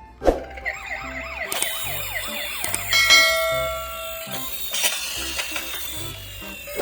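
Emergency-vehicle sirens sounding, with fast up-and-down wails followed by steady tones and falling glides, over a repeating low beat. A sharp knock comes about a quarter second in.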